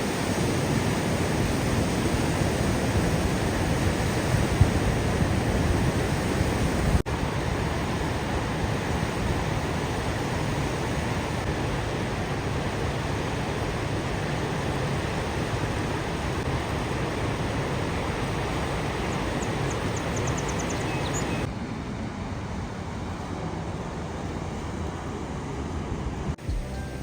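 Waterfall rushing: a steady, dense noise of falling water that does not let up. It changes abruptly about seven seconds in and drops suddenly quieter about twenty-one seconds in.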